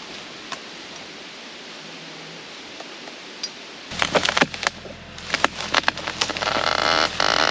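A steady hiss, then about four seconds in a low, steady engine hum sets in suddenly along with crackling, snapping and rustling, busiest near the end.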